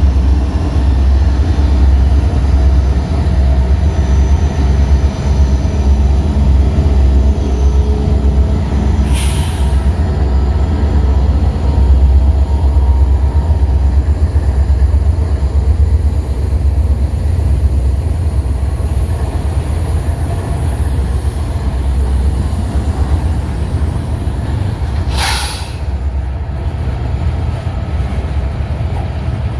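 Diesel-hauled freight train running past, with a deep steady rumble from the locomotives and rolling cars. Two short high-pitched sounds cut through, about 9 seconds in and again about 25 seconds in.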